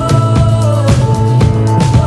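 Background music with a steady drum beat, about two beats a second, over held bass and melody notes.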